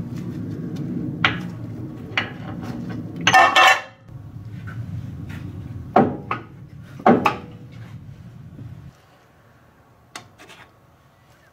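Metal clinks and a short, loud scraping rattle as the gears and parts of an open Ford 8.8 rear differential are handled, over a steady low rumble that stops about nine seconds in.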